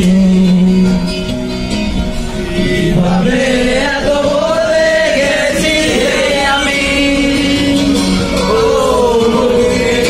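A group of men singing a song together loudly, with held, sliding notes, inside a crowded vehicle.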